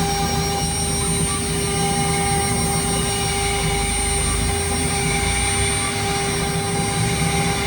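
CNC router spindle running at speed while engraving stone: a steady high whine over a continuous grinding rush of the bit cutting.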